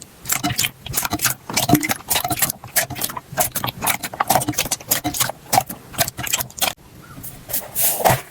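Slime being squished, giving rapid sticky clicks and pops, several a second. The sound drops out briefly near the end, then louder pops resume.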